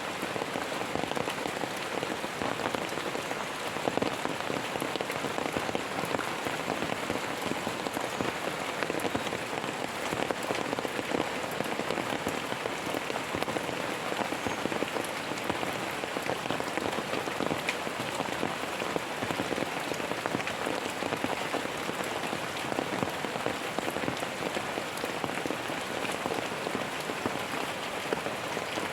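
Steady heavy rain pattering on a surface, a dense even patter of drops with no thunder.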